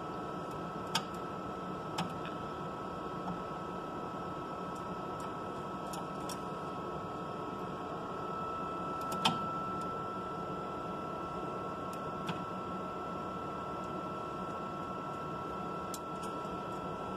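A few small clicks and taps of a stage insert and screwdriver being handled on a metal microscope stage, the loudest about nine seconds in, over a steady equipment hum with a thin high tone.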